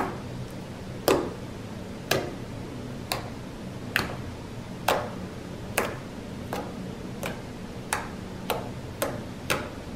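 Fingertips poking into a mound of homemade clear-glue slime, each poke giving a sharp sticky pop. About a dozen pops come roughly one a second, a little faster near the end.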